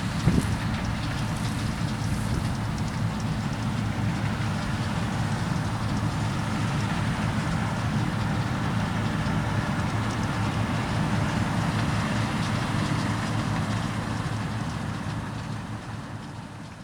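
Claas Lexion combine harvester on steel tracks running steadily while harvesting rice, a continuous machine drone with a brief knock just after the start; the sound fades out over the last few seconds.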